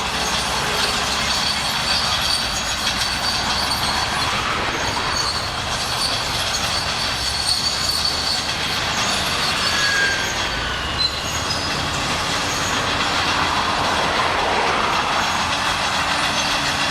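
Crawler bulldozer working, its diesel engine running under a steady high squeal and clank of its steel tracks.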